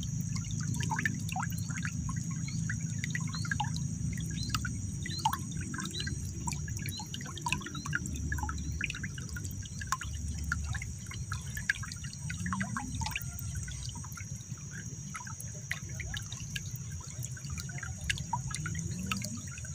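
Shallow muddy water trickling and dripping at the mouth of an eel hole, a scatter of small drips and gurgles over a low steady rumble, with a steady high-pitched hum behind it.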